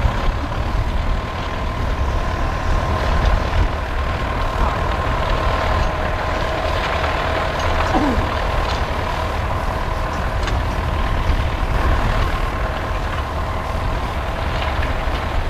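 Vintage tractor engine running steadily under load as it pulls a mounted plough, a low rumble with a steady whine above it.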